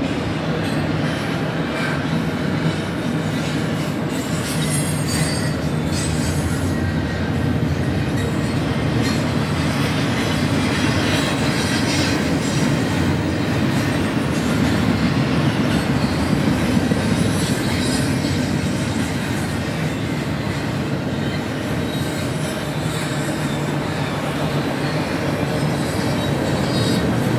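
BNSF double-stack intermodal container cars rolling past: a steady rumble of steel wheels on rail, with high wheel squeal coming and going.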